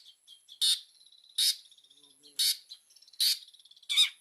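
Long-tailed shrike (cendet) calling: five short, harsh, rasping notes about a second apart, with softer twittering notes between them, over a steady high-pitched trill.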